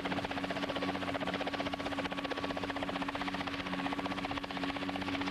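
Scheutzow Bee light helicopter in flight: rotor and engine running steadily with a fast, even beat over a constant hum.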